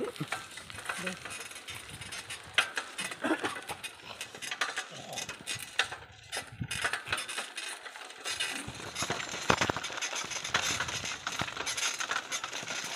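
Bicycle riding over a rough lane: irregular metallic clicks and rattles from the bike over a steady hiss.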